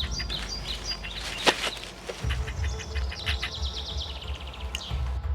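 Wild birds singing, short repeated chirps and a quick trill that falls in pitch, over a low rumble. One sharp click stands out about a second and a half in.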